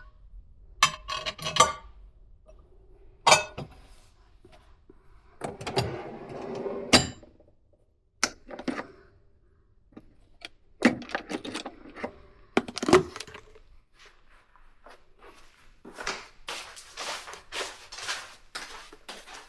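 Dishes and utensils being handled: a series of clinks and knocks, some ringing briefly, with a run of quick rustling handling sounds near the end.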